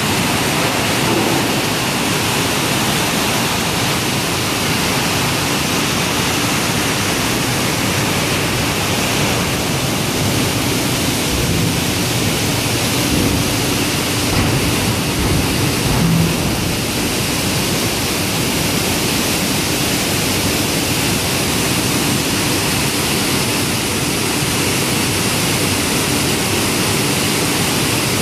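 SMS hot rolling mill stands running with glowing steel between the rolls and water jets spraying onto them: a steady, really noisy rushing sound with no break.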